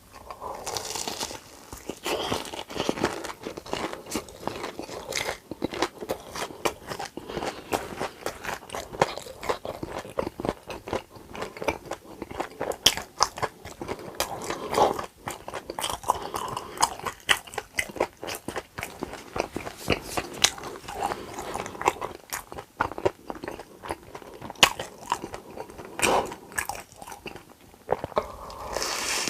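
Close-miked mukbang eating: biting into and chewing crunchy food, with many sharp crunches and wet chewing sounds in quick succession.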